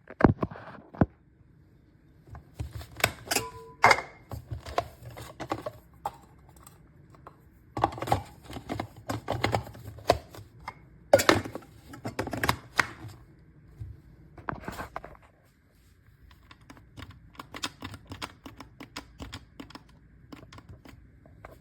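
Plastic clicks, knocks and rattles from handling a SHARDOR electric coffee grinder: pressing its switch and twisting and seating the bowl and lid, in clusters of rapid clicks. The motor never starts: the grinder will not turn on, which the owner later puts down to a short in the cord.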